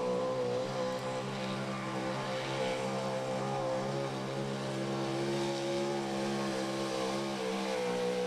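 Small-block V8 of a square-body Chevy 4x4 pulling truck running at high, nearly steady revs under full load while it pulls the sled down the track.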